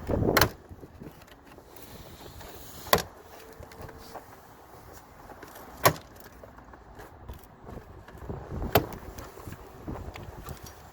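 Plastic retaining clips of a Range Rover Sport door trim panel popping loose as a plastic trim wedge pries the panel away from the door: four sharp snaps about three seconds apart, the first with a short scraping rattle.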